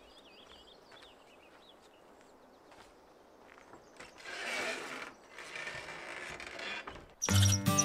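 Faint birdsong, then two stretches of creaking, scraping noise, the louder one about four seconds in, like wood rubbing or a wooden mechanism working. Music comes in just before the end.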